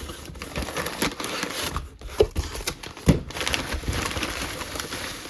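Packaging rustling and crinkling as a mail package is handled and opened, with scattered clicks and two sharper knocks about two and three seconds in.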